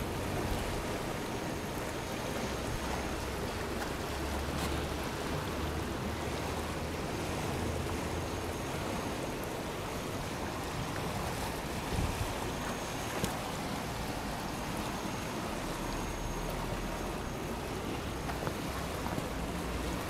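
Steady rush of a fast-flowing river, with wind gusting on the microphone in low rumbles now and then.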